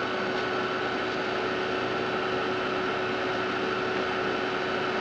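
Steady whir of an Amiga 4000's hard drive and power supply: an even hiss carrying two constant whining tones, one high and one lower.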